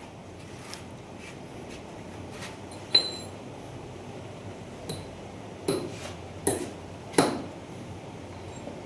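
Metal tapping on metal: five sharp clinking strikes, spaced unevenly from about three seconds in. The first strike is the loudest and rings briefly.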